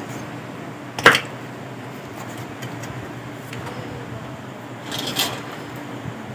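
Small metal parts or hand tools clacking on a workbench during an electronics repair: one sharp clack about a second in and a shorter clatter near five seconds, over a steady low hum.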